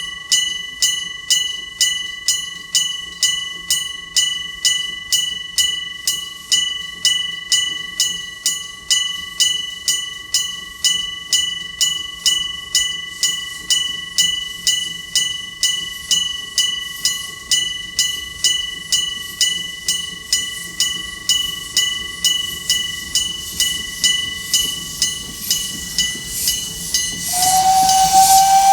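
Railway level-crossing warning bell ringing steadily, about two strikes a second. Near the end the Iron Horse steam locomotive's whistle blows, one steady tone over a hiss of steam.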